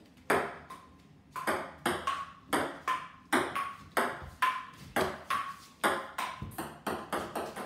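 Table tennis rally on a wooden dining table: a plastic ball clicking off paddles and bouncing on the tabletop about twice a second, many bounces leaving a short ringing tone. The clicks start about a second in.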